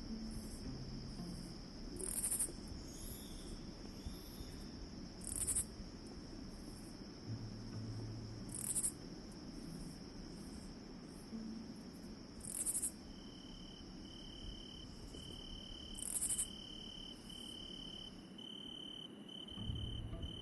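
Night forest ambience of crickets. A steady high trill carries on with a brighter chirp every three or four seconds. About two-thirds of the way in, a lower chirp starts repeating about twice a second, and the steady trill stops near the end.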